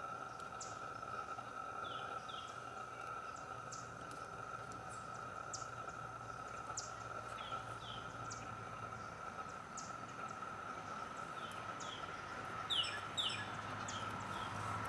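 A steady high-pitched drone, with birds chirping in short falling pairs every few seconds, the loudest pair near the end. Faint sharp ticks come about once a second.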